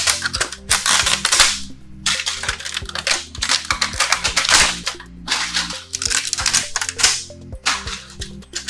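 3D-printed plastic support material snapping and crackling as it is pulled away by hand from the printed part, in a quick, irregular run of sharp cracks.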